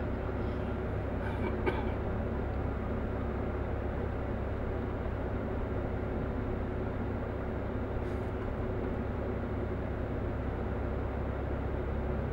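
Steady engine and tyre noise of a vehicle driving at highway speed, heavy in the low end with a faint steady hum over it. A short tap rises above it about a second and a half in.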